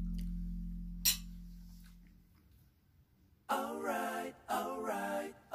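Background music: a low held note fades out, then after a short pause a voice starts singing, two phrases in the second half.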